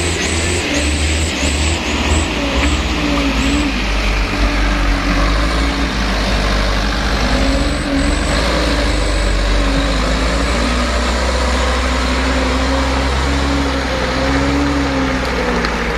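Truck diesel engines working hard under load as a Mitsubishi Fuso Canter laden with oil palm fruit bunches is towed up a muddy slope by a second truck on a tow line. The engine noise is steady and loud, and its note wavers slightly up and down.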